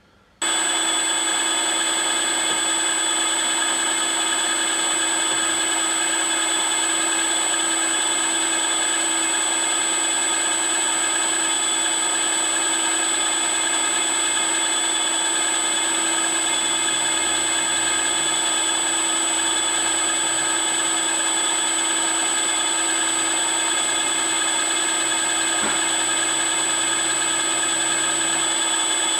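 Milling machine spindle running at high speed as a center drill cuts into a small metal rod: a steady whine with several held tones. It starts suddenly just after the start.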